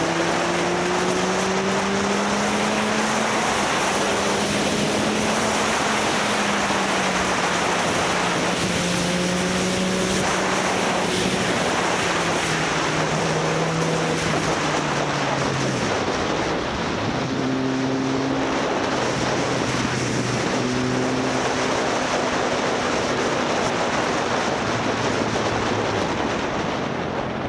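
Motorcycle engine running on the move, its pitch slowly rising and falling with speed and dropping about two-thirds of the way through, under a steady rush of wind on the microphone.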